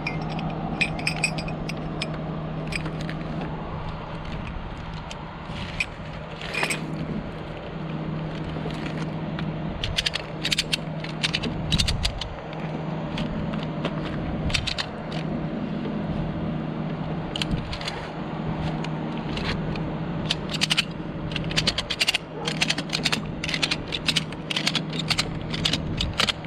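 Ratchet strap being cinched around a split tree trunk: runs of sharp metallic clicks from the ratchet, in dense clusters from about ten seconds in, with the hardware rattling. Under it runs the steady hum of the bucket truck's engine.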